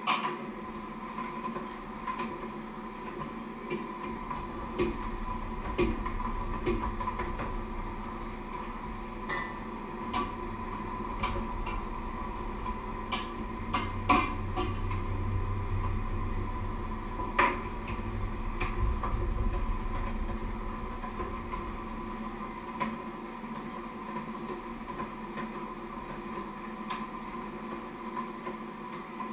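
Scattered light clicks and knocks of kitchen utensils on a wooden cutting board and counter, over a steady hum, with a low rumble through the middle stretch.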